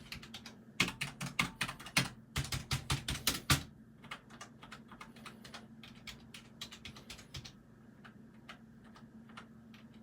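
Typing on a computer keyboard: a quick run of louder key clacks in the first few seconds, then softer, sparser keystrokes that die away near the end.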